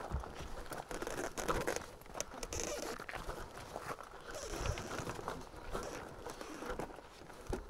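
Bicycle tyres rolling over loose gravel: an irregular crunching crackle with many small clicks and rattles.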